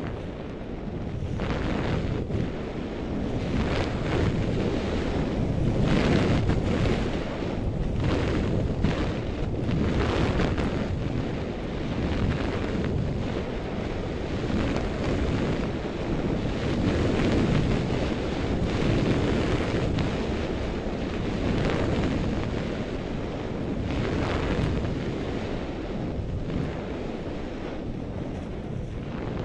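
Wind buffeting the microphone of a goggle-strap-mounted action camera on a fast ski descent, with the scrape and hiss of ski edges on packed snow swelling again and again as the skier turns.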